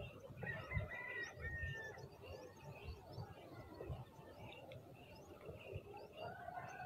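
Faint birds chirping: many short, quick high chirps throughout, with a longer held call from about half a second to two seconds in. Low bumps from handling or wind sound underneath.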